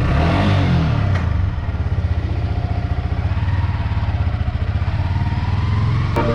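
Yamaha R15 V3 motorcycle's single-cylinder engine revving up and back down about a second in as it pulls away, then running steadily.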